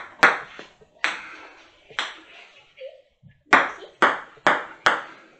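Ping-pong ball bouncing on a tabletop: sharp taps, a few spaced ones near the start and then a quicker run of four past the middle.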